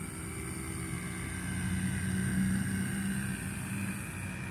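Low hum of a distant engine, growing louder toward the middle and then easing off, as a motor vehicle passes.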